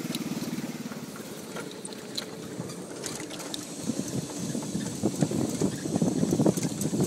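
Small go-kart engine running close by at a steady speed, fading as the kart drives off. From about four seconds in, irregular thuds grow louder and take over, as the person holding the camera follows on foot over wet, muddy ground.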